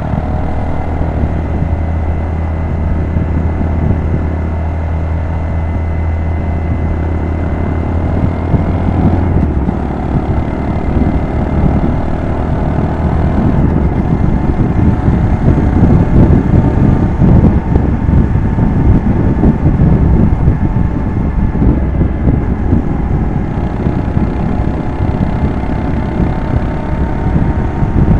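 Small single-cylinder motorcycle engine running steadily, then louder and rougher from about ten seconds in, with a churning low rumble.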